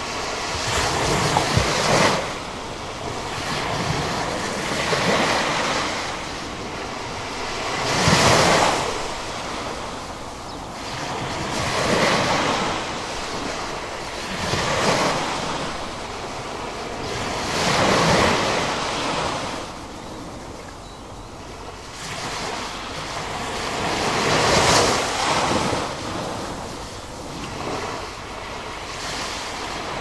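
Ocean surf breaking on a shore, the wash swelling and falling back every few seconds.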